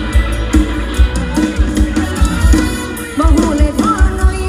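Live Thai Isan band music: a steady drum-kit beat with a heavy bass drum under a melody line that slides and bends in pitch about three seconds in.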